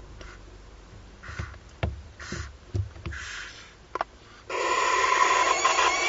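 Barn owl chicks giving short breathy hisses about once a second, with light taps and scuffs on the wood-chip floor of the nest box. About four and a half seconds in, a loud continuous hissing starts suddenly and holds.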